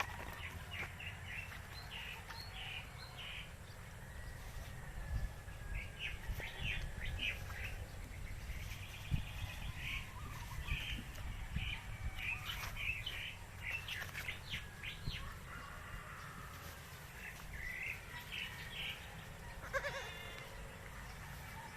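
Short, high chirping calls in quick clusters, repeated on and off, with one lower, bleat-like call about twenty seconds in.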